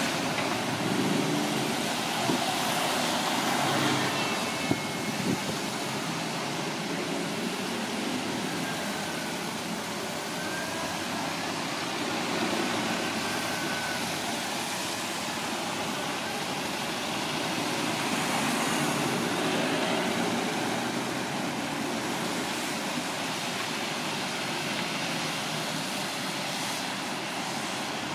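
Busy city road traffic: double-decker buses and cars passing on a wet road, with steady tyre hiss and engine noise throughout.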